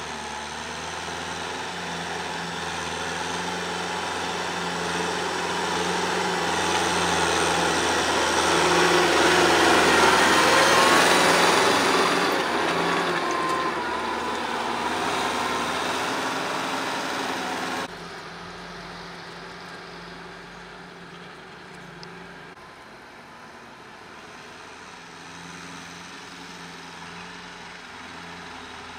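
Kubota M6040 tractor's diesel engine running steadily under load while its rotary tiller works the soil. The sound grows louder as the tractor comes close, then drops suddenly to a quieter, more distant level about two-thirds of the way through.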